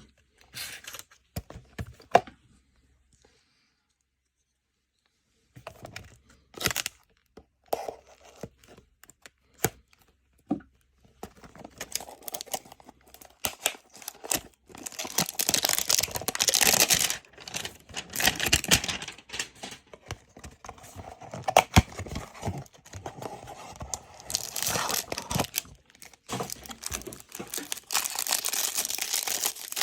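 Packaging of trading-card hanger boxes being torn open and crinkled by hand. It starts with a few scattered clicks and rustles, then a silent pause of a few seconds, and after about ten seconds it turns into long, loud stretches of tearing and crinkling.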